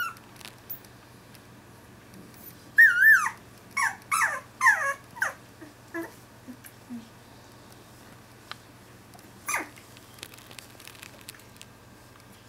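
Two-week-old Finnish Lapphund puppy whining and complaining: a wavering high cry, then a quick run of four or five short squeals that fall in pitch, and one more cry a few seconds later.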